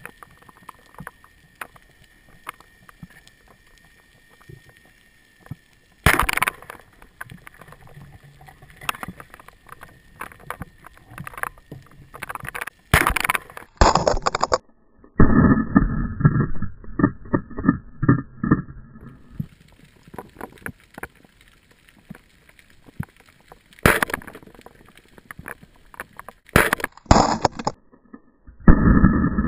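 Picasso Basik band-powered speargun fired underwater, heard through a camera housing: several sharp cracks spread through, about 6, 13, 24 and 27 seconds in, with clicks and knocks between. Muffled low rumbling stretches of water and handling noise come in around the middle and near the end.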